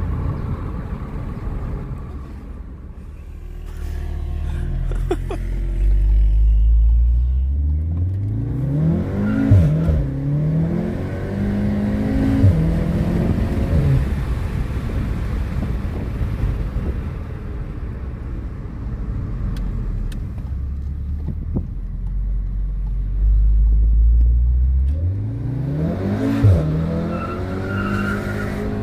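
VW Golf 7 R's turbocharged 2.0-litre four-cylinder accelerating hard twice, revs climbing quickly and dropping at each gear change with a sharp crack at the shifts. Each run begins with a low rumble that builds into the pull.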